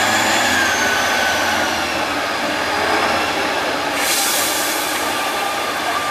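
Tatra 813 8x8 truck running under load, its engine and drivetrain giving a steady high whine that slowly falls in pitch. About four seconds in, a sharp hiss lasts about a second.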